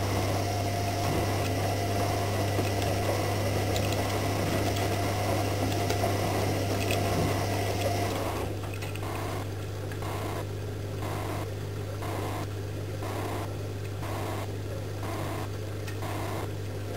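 AEG Lavamat 76730 front-loading washing machine in its wash phase: a steady low hum under water rushing and sloshing as the drum tumbles the wet laundry. About halfway through, the rushing eases and settles into an even, rhythmic swish, a little under once a second.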